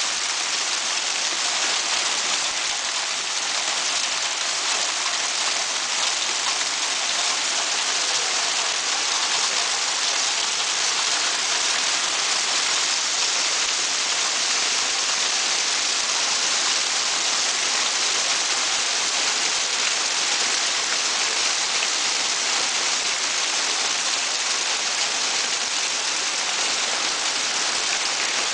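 Hail and heavy rain falling steadily on trees and ground: a dense, even hiss with no letup.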